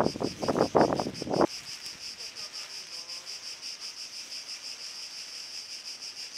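Insects chirping in steady, rapid pulses, about six a second, in a high, even trill. For the first second and a half a loud, rough rushing noise lies over it and then cuts off abruptly.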